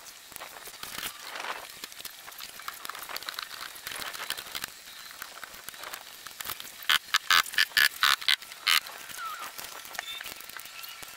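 A quick series of about nine sharp hammer strikes, driving nails into vinyl siding, comes about seven seconds in and lasts under two seconds. Light handling and rustling sounds come before and after.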